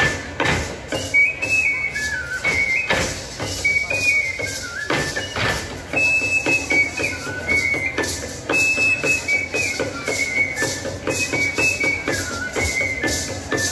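Traditional folk dance music: a high flute plays a stepping melody over steady drum beats.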